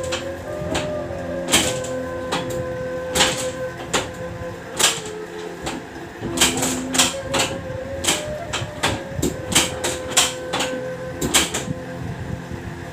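A run of sharp clicks at irregular intervals, one or two a second, from the chiropractic spinal adjustment, over soft sustained background tones.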